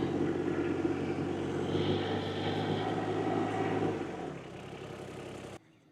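An engine running steadily, fading away about four seconds in, then cut off suddenly near the end.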